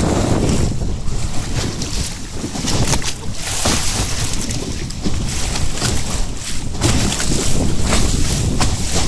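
Wind buffeting the microphone over the rush and splash of the bow wave as an Oz Goose sailing dinghy's hull cuts through choppy water at speed, with the hiss of spray surging every few seconds.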